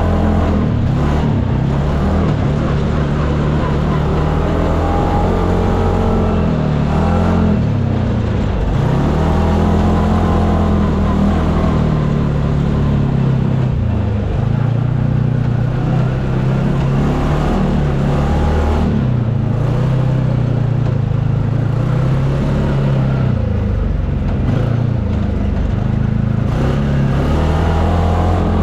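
UTV engine running under constantly changing throttle, its pitch rising and falling again and again as it revs up and eases off.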